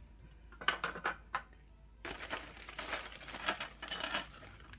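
A few light clicks of small plastic toy animal figures knocking together, then, about two seconds in, a plastic zip-top bag crinkling for about two seconds as a hand digs through it.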